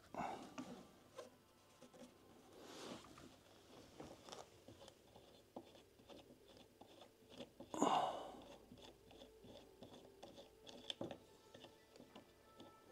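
Faint scattered clicks and scrapes of a metal table leg and its fittings being handled and fitted by hand while a laptop side table is put together, with one louder brief noise about eight seconds in.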